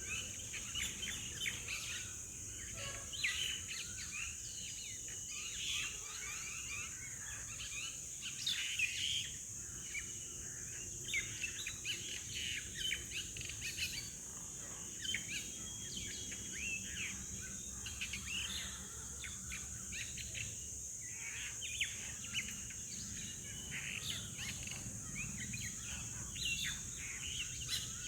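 Many birds chirping and calling, with short, overlapping calls throughout, over a steady high-pitched drone.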